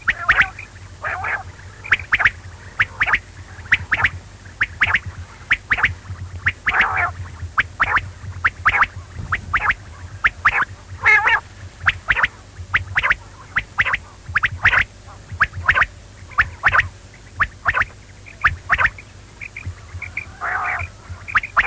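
Quail calling over and over: short, sharp notes repeated in quick clusters, with a faint steady low hum beneath.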